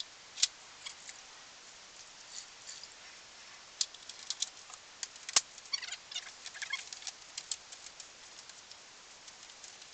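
Plastic roller-shutter slats being handled and wiped with a wet rag: scattered light clicks and knocks at an uneven pace, with a short run of squeaky chirps around the middle.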